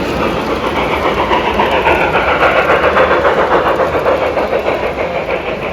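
Model steam train running past on a layout track, with fast, fine clicking of wheels and motor. It grows louder to a peak a couple of seconds in, then eases off as it goes by.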